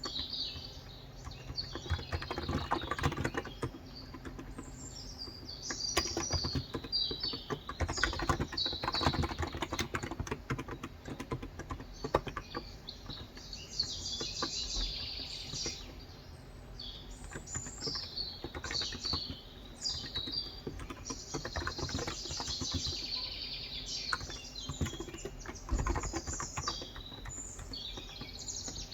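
Typing on a Cox Endeavor electro-capacitive tenkeyless keyboard with 35 g switches: quick, uneven runs of keystrokes with brief pauses. Small birds chirp in the background.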